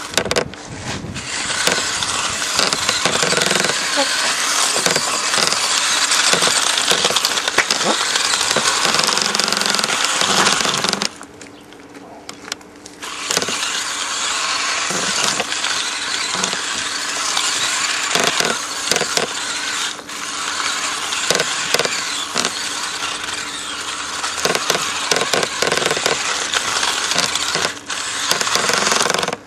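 Electric remote-control car driving, its motor and gearbox running with a loud whirring rattle that drops away for about two seconds near the middle, then picks up again.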